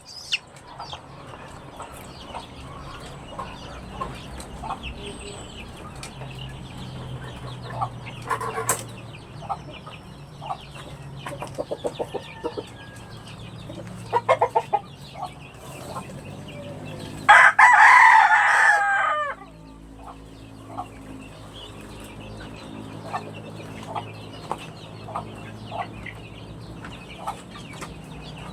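Backyard chickens clucking, with short calls scattered throughout. A rooster crows once, loudly, for about two seconds a little past the middle.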